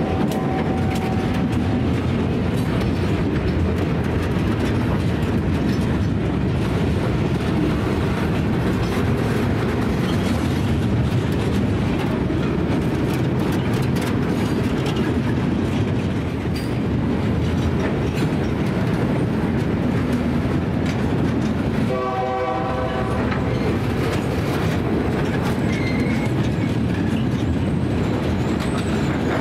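A long string of freight gondola cars rolling past close by, with a steady rumble and wheels clicking over the rail joints. About three-quarters of the way through, a short horn blast sounds.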